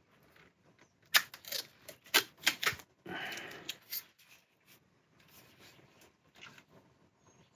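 Duct tape being peeled off and handled: a string of sharp clicks and crackles, with a longer tearing rasp about three seconds in, then fainter rustling.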